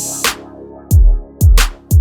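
Background electronic music with a heavy beat: deep bass-drum hits a bit under half a second apart, with sharp high percussion hits.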